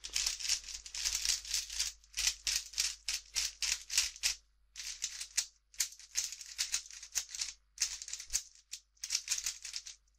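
Black Cyclone Boys 57mm 3x3 speedcube turned fast by hand: quick runs of plastic clicking and scraping as the layers turn, with a few brief pauses between runs.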